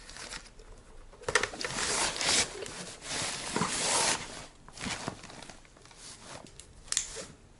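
Rustling and scraping of a nylon camera bag being shoved and pressed down into an open hard-shell suitcase, fabric rubbing against the suitcase lining, with a couple of sharp knocks.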